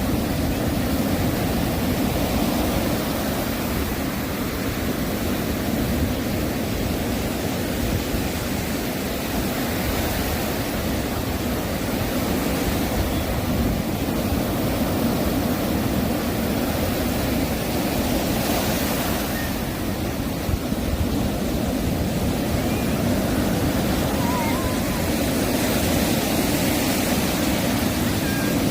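Ocean surf breaking on a sandy beach: a loud, continuous deep rush of waves. It swells brighter every few seconds as a wave breaks.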